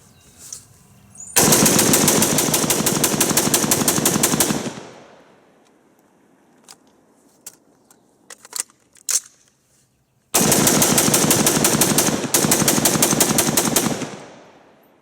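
SIG716 semi-automatic rifle in .308/7.62x51 with a Hiperfire 24C trigger, fired very rapidly in two long strings of closely spaced shots. The two strings are a few seconds apart, with a few separate clicks and knocks in the pause between them.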